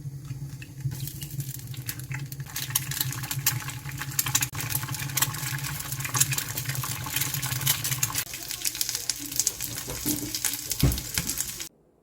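Food sizzling and crackling in a hot pan over a steady low hum, likely a range-hood fan. The hum stops about eight seconds in, and the sizzling cuts off suddenly near the end.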